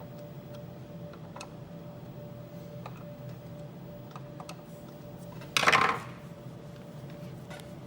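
Small metal parts and tools clicking and clinking during hand work on a machine, with one loud metallic clatter of about half a second a little past the middle, over a steady hum.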